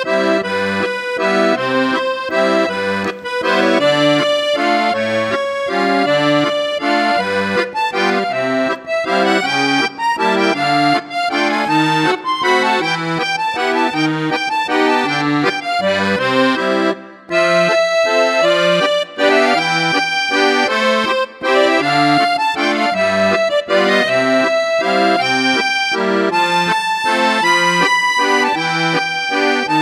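Instrumental background music: a held, stepping melody over a regular pulsing bass line, which breaks off for a moment about 17 seconds in.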